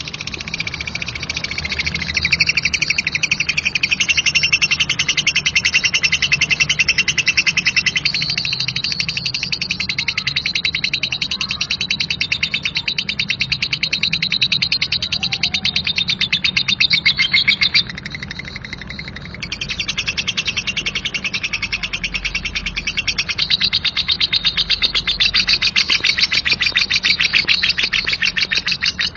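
Lovebird giving its long "ngekek" chatter: a rapid, unbroken run of harsh, coarse chirps. It eases off briefly about two-thirds of the way through, then picks up again.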